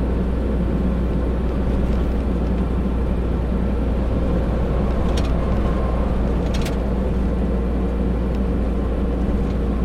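Steady low drone of a tractor-trailer truck's diesel engine and tyres, heard inside the cab while driving. Two faint short clicks come about five seconds in and again a second and a half later.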